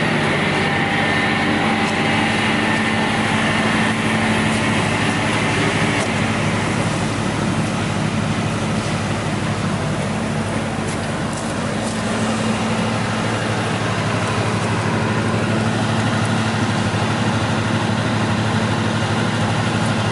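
WEIMA WL 5 single-rotor wood shredder running with a steady mechanical hum, with a higher whine that fades out about six seconds in.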